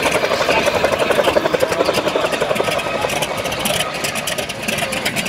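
Bell 47 helicopter in flight: its piston engine runs with a rapid, even rotor beat. The beat grows a little fainter after about three and a half seconds as the helicopter banks away.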